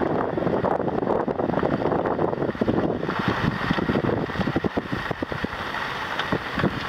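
Car driving on a bumpy dirt road: steady tyre and road noise with many small knocks and rattles from the bumps, thickest in the middle, and wind buffeting the microphone.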